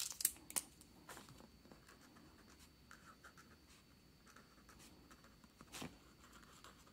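Faint scratching of an Archer & Olive Acrylograph acrylic paint marker's 0.7 mm nib writing on kraft paper, in light separate strokes. A few handling clicks at the start and one sharper tap near the end.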